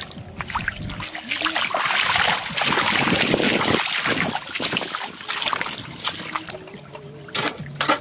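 Splashing and sloshing of shallow running water as feet and a hand net move through it. It is loudest about two to four seconds in, then eases to lighter splashes.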